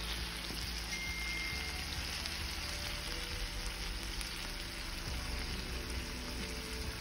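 Rib eye steak sizzling steadily in melted butter with garlic cloves in a frying pan, an even frying hiss.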